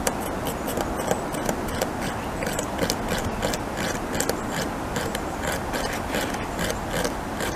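North American beaver gnawing into a tree trunk: quick, irregular scraping bites of its incisors into the wood, a few a second, over a steady low background noise.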